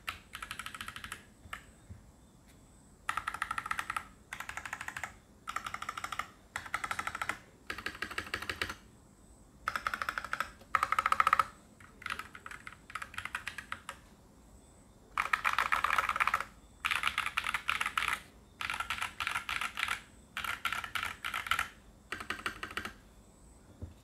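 FL Esports F12 mechanical keyboard with FLcmmk pink Holy Panda-style tactile switches and PBT doubleshot Cherry-profile keycaps being typed on in about fifteen fast bursts of keystrokes, separated by short pauses, with a longer pause a little past the middle. The long-pole stems make the bottom-out clack prominent.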